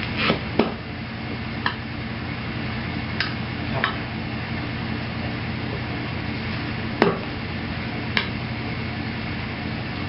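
Screwdrivers and the tire bead working against a wheel rim during hand tire mounting: scattered clicks and knocks, about seven in all, the sharpest about seven seconds in, over a steady low hum.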